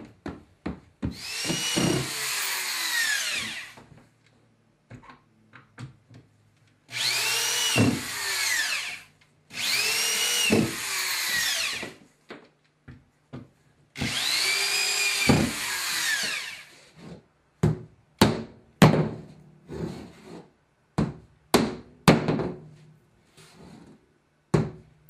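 A drill driving screws into 1/4-inch cement backer board: four runs of a couple of seconds each, the motor whine rising and then falling as each screw goes in. In the last third, a hammer taps the board in a quick run of sharp knocks.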